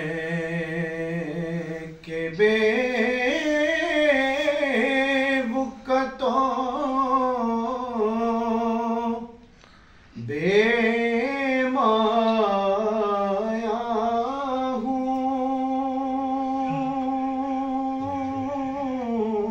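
A man recites a naat unaccompanied, a single voice singing long, drawn-out, ornamented phrases. He breaks briefly for breath about nine and a half seconds in.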